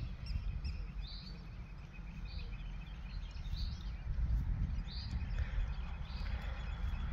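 Birds chirping outdoors: short high chirps about once a second over a low, steady rumble.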